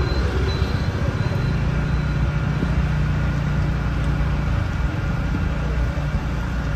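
Car engine and road noise heard from inside a moving car: a steady low rumble.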